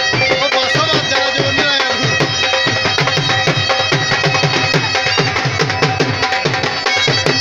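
Dhol drum beating a fast, steady rhythm under a reedy, droning been melody: folk dance music.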